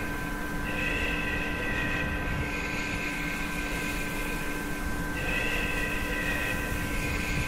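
A steady rumbling drone with several held hum tones. A higher, whistling pair of tones swells in twice, each time for a second or two.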